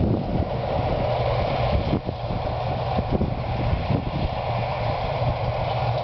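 Claas combine harvester and the tractor running alongside it, heard working across the field: a steady mechanical drone over a constant low hum.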